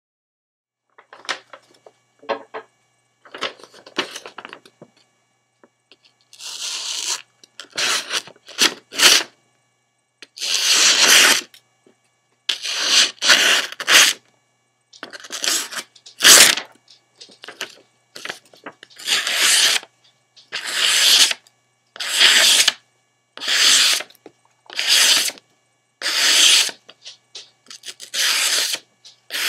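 A Ka-Bar BK7's factory edge slicing through a sheet of paper again and again, each pass a short rasping hiss, about one a second. A few softer rustles of the paper being handled come first.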